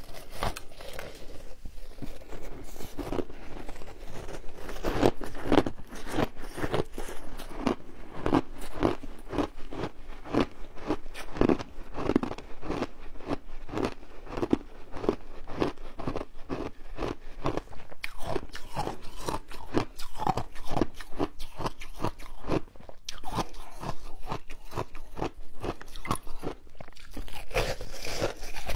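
Close-up biting and chewing of a block of colourful frozen shaved ice: crisp crunching bites at the start and again near the end, and a steady run of chewing crunches, a few a second, in between.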